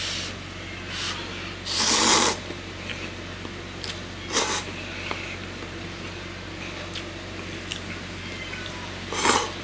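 A man slurping instant cup ramen noodles: a long slurp about two seconds in, a shorter one around four and a half seconds, and another near the end. Faint clicks come between the slurps.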